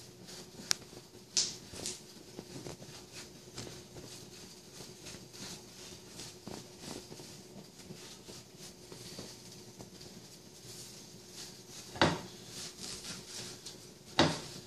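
Kitchen knife slicing down through a watermelon half, a run of small cutting and scraping sounds. Sharp knocks punctuate it, two near the start and the two loudest near the end.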